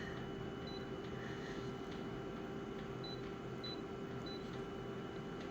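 Steady electrical hum with background hiss, and a few very short, faint high blips scattered through it.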